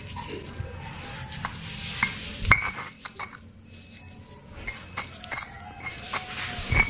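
Stone pestle grinding and mashing tempeh with turmeric in a stone mortar (Indonesian cobek and ulekan): steady gritty scraping and rubbing of stone on stone, with occasional sharp knocks, the loudest about two and a half seconds in and another near the end.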